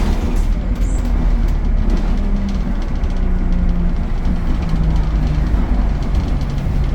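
ADL Enviro 200 bus's diesel engine and Allison automatic drivetrain running on the move: a steady low rumble with a hum whose pitch steps down over the second half.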